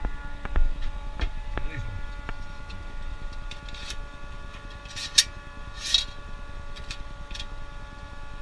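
Clicks and knocks of a sheet-metal blast gate being handled and offered up to a plastic extraction pipe, with two short scraping rattles about five and six seconds in. A steady hum of several tones runs underneath.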